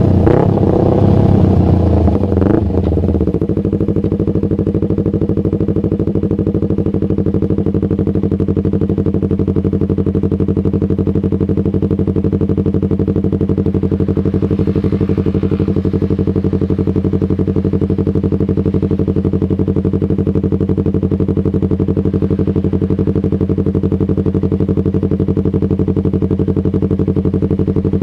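Yamaha MT-25's parallel-twin engine through a Shadux racing exhaust, dropping back from a rev in the first three seconds or so and then idling steadily.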